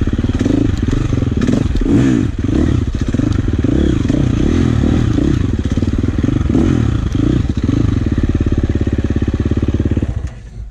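Dirt bike engine running loud, revving up and down over and over. It cuts off sharply about ten seconds in.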